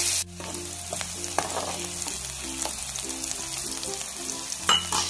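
Chopped onions sizzling in hot oil in a pan, with a few scrapes and taps of a spoon stirring them. The sizzle drops suddenly quieter a moment in.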